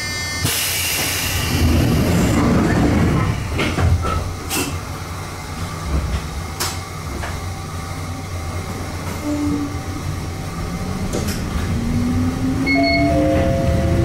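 Toyama Chiho Railway 14760-series electric train: a burst of air hiss about half a second in and a few sharp clicks, then from about nine seconds in a traction-motor whine rising steadily in pitch as the train pulls away and accelerates.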